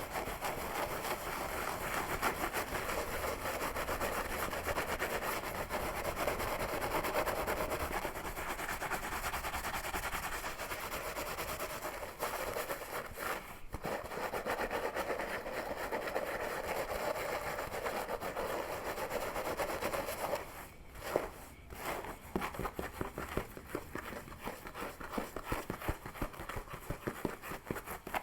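Close-miked scalp scratching and hair pulling: a dense, continuous scratching and rustling of fingers through hair. It stops briefly about two-thirds of the way in, then goes on as quicker, separate strokes.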